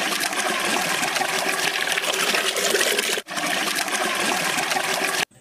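Raw cracked eggs pouring in a thick stream from one metal pot into another: a steady, splashing pour. It breaks off briefly about three seconds in and cuts off suddenly near the end.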